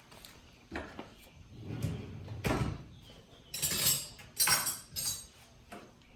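Hand tools and bolts being handled against metal: a series of irregular clinks and knocks, about half a dozen, with no steady rhythm.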